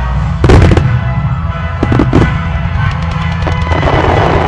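Aerial fireworks bursting over music: a loud burst about half a second in, two more around two seconds, then rapid crackling shells near the end.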